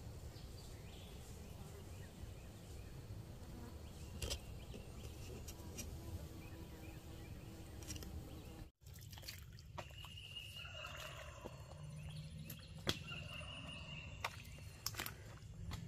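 Wild turkeys gobbling, in repeated calls in the second half, after a stretch of low steady rumble.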